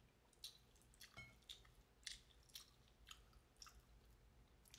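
Faint, close chewing of crispy fried chicken: short crunchy clicks about twice a second.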